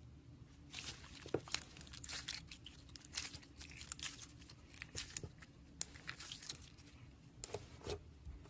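Slime being worked by hand, giving a run of quick crackles and pops that stops about six seconds in and starts again briefly near the end.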